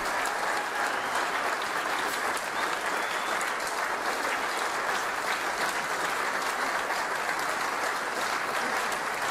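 Audience applause: a steady, dense clapping of many hands that holds an even level throughout.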